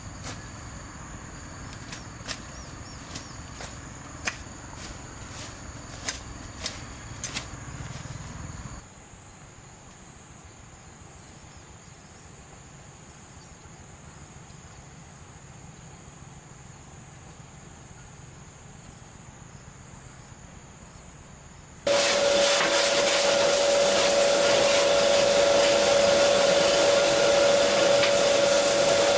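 Insects trilling in a steady high tone, with a few sharp clicks over the first several seconds, then fainter. About twenty-two seconds in, a loud steady whir from a small motor with a constant hum starts suddenly and runs on.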